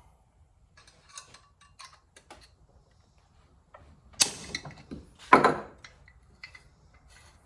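A hand tool working loose a very tight bolt on a chainsaw: small metallic clicks and scrapes, then two louder metal clatters about four and five and a half seconds in.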